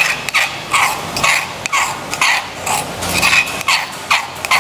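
A metal spoon scraping crushed garlic across a stone mortar (cobek), in quick regular strokes about three a second.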